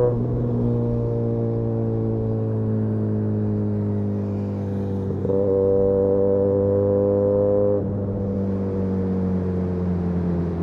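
Benelli 302S parallel-twin engine through an Austin Racing titanium exhaust, riding along. Off the throttle the note falls slowly. About five seconds in the throttle opens and the exhaust gets louder, rising a little in pitch. Near eight seconds it closes again and the note falls away.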